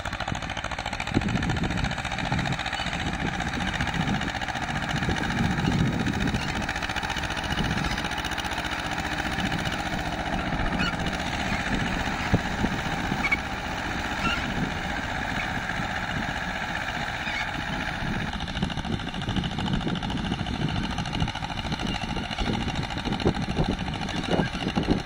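An Escort tractor's diesel engine runs steadily as it pulls a disc harrow across ploughed soil, with an uneven low beat.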